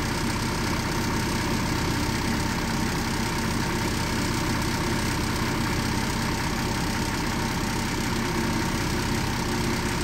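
Unimog 416's diesel engine idling steadily, driving its onboard air compressor while a tire is slowly filled.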